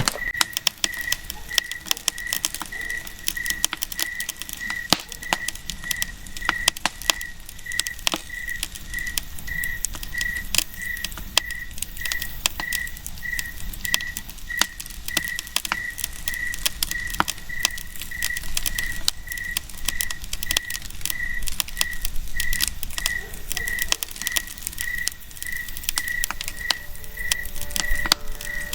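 Campfire crackling and popping with dense, irregular snaps. Behind it, a steady series of short high-pitched peeps repeats a little under twice a second.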